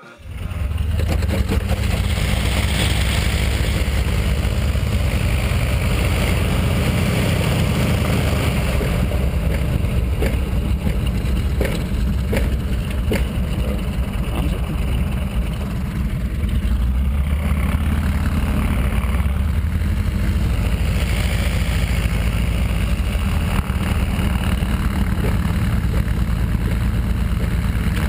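Zlin Z-126's four-cylinder Walter Minor engine and propeller running steadily at low power, heard from inside the cockpit, coming in suddenly about half a second in. A few sharp clicks midway.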